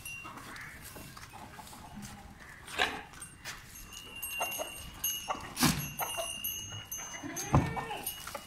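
Goats bleating in short calls on a goat farm, with a few sharp knocks among them.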